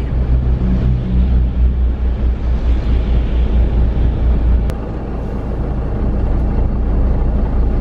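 Minibus engine and road noise heard from inside the cabin while driving on wet roads: a steady low rumble. A single click comes about two-thirds of the way through, and the rumble is slightly quieter and smoother after it.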